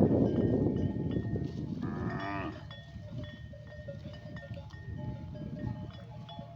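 Bells on grazing livestock clinking and ringing, with one farm animal calling about two seconds in. A loud low rumble fills the first second.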